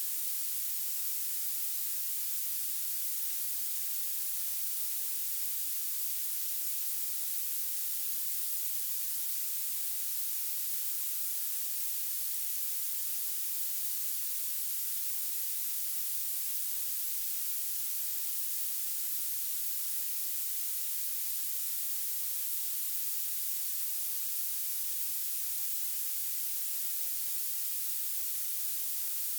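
Violet noise: a steady, even hiss weighted toward the highest pitches, with very little in the low end.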